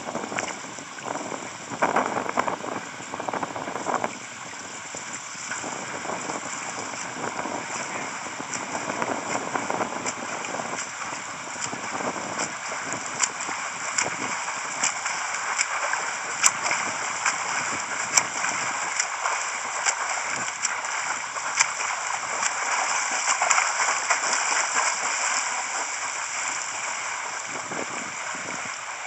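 Swimming-pool water heard from under the surface: a steady hiss and gurgle with many small clicks, plus the splashing of a swimmer's front crawl arm strokes and kicks as she swims past.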